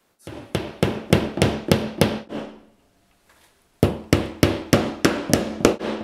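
Pliers used as a hammer, tapping plastic wall plugs into drilled holes in a wall: two runs of quick taps, about three or four a second, with a short pause in the middle.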